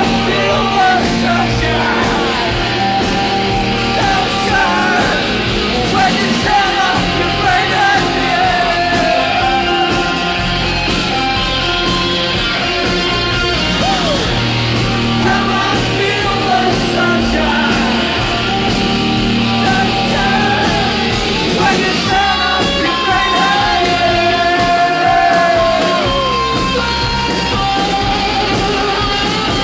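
Live rock band playing loudly, with electric guitars, bass and drums under a lead vocal, heard from within the audience at a concert.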